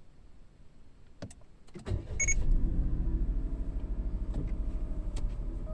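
Toyota Tank engine starting after a battery replacement: a couple of clicks, then it catches about two seconds in and settles into a steady idle, with a short high tone just as it fires.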